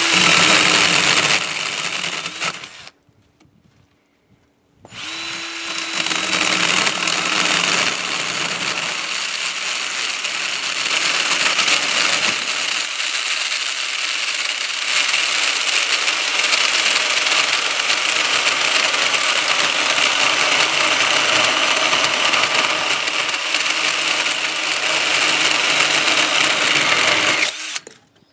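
Ryobi 18V cordless drill driving a chainsaw attachment, its chain cutting through a branch: a short run of about three seconds, a stop of about two seconds, then a long steady run of over twenty seconds that cuts off near the end. The chain runs slack, because the attachment was assembled without its chain tensioner.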